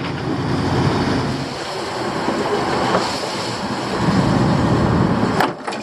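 Steady, loud rumbling of a running vehicle or engine, like a vessel under way, which drops away sharply about five and a half seconds in, followed by a few sharp clicks.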